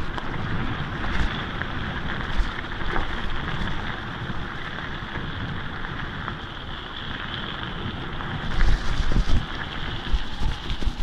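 Mountain bike rolling fast downhill on a gravel track: tyres crunching over stones, the bike rattling over bumps, and wind buffeting the microphone. The jolts get harder near the end.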